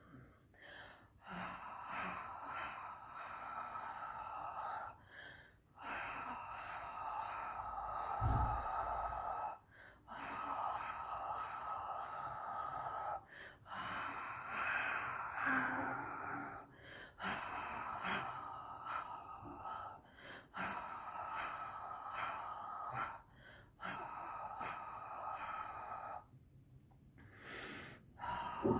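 A person breathing audibly in long, drawn-out breaths of about three to four seconds each, one after another with short breaks between them.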